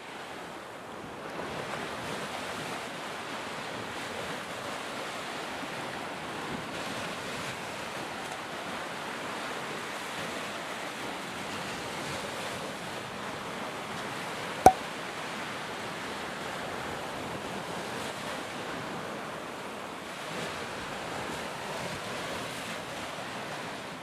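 Ocean surf washing steadily onto a beach, with one sharp click about fifteen seconds in.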